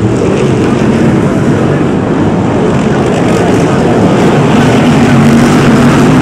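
BriSCA F1 stock car V8 engines running loud and steady while the cars move slowly, with an engine note growing stronger about four seconds in.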